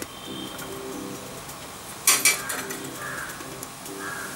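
Pigeons cooing over and over in the background. About two seconds in comes a sharp metallic clink twice, as the rear brake rod's steel adjuster nut and the rear brake lever are handled and taken off.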